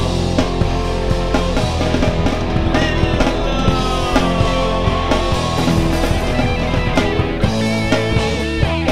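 Rock band playing an instrumental passage with drums and no vocals, with a long note sliding down in pitch through the middle.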